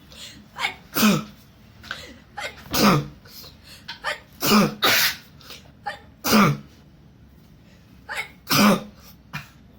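People sneezing over and over, set off by sneezing powder snuffed up the nose. There are about six loud sneezes a second or two apart, with smaller ones between.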